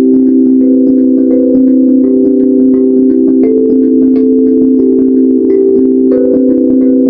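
Tongue drum struck quickly with two rubber-tipped mallets, about four strikes a second across several notes, each note ringing on so that the tones overlap into a continuous chiming wash.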